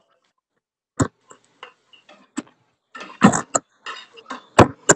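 Spatula tapping and scraping against a skillet as fried rice is stirred. A few scattered clicks come first, and the scraping gets busier over the last two seconds with one sharp knock near the end.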